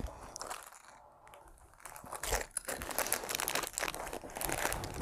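Clear plastic parts bags crinkling and crackling as they are handled. Fairly quiet for the first couple of seconds, then a busy run of crinkling from about two seconds in.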